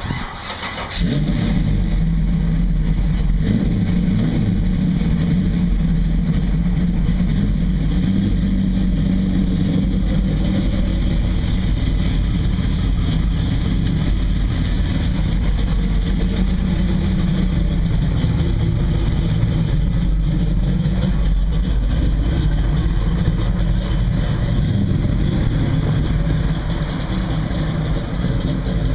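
1968 Chevrolet Camaro's engine cranking and catching about a second in, then idling steadily.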